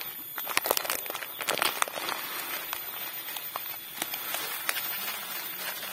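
Granular calcium nitrate fertilizer poured from a bag into a bucket onto a heap of MKP granules: a crackling patter of falling grains, thickest in the first two seconds and then thinning to scattered ticks.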